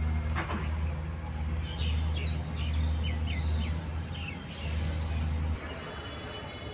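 Birds chirping: a few short, high, falling calls, over a steady low rumble that cuts off abruptly near the end.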